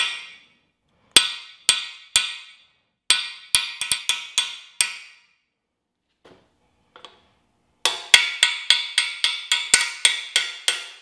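Hammer blows on a socket driving a freeze plug into a Chevy 350 small-block engine block. The metallic strikes each ring briefly: one blow, then three spaced ones, a quick flurry, and near the end a fast run of about a dozen blows at roughly four a second.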